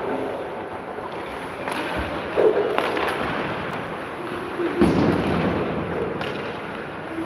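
Ice rink ambience: irregular sharp knocks and bangs, about five, each ringing on in the arena's echo over a steady background noise.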